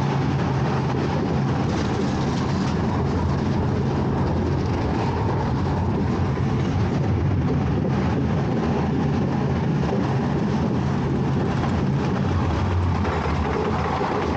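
Small SBF Visa family coaster train running along its steel track, with a steady rumble and rattle of wheels and cars heard from on board.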